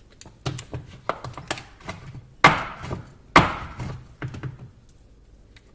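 Rock-hard set chocolate being knocked and chipped off a smartphone: a run of sharp knocks and cracks, the two loudest about a second apart near the middle, stopping about a second before the end.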